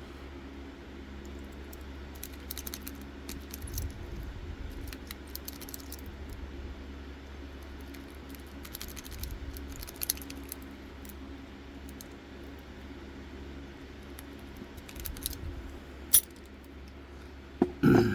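Lock picks working in a Master Lock padlock: scattered small metallic clicks and scrapes, a sharper click near the end, then a few louder metal clatters.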